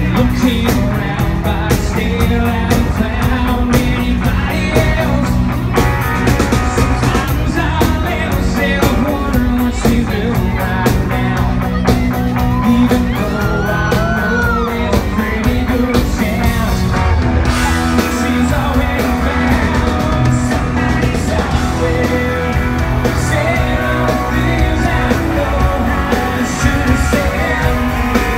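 A live rock band playing loudly through a concert PA, with drums, electric guitar and vocals.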